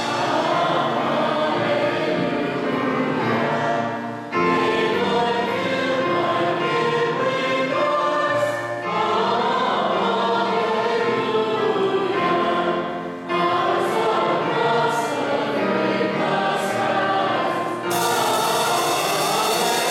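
Church choir and congregation singing a hymn, in phrases with short breaks between them.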